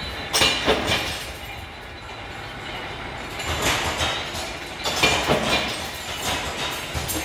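Steady mechanical rumble and rattle, with louder swells of metallic clanking about half a second in, near four seconds and around five seconds.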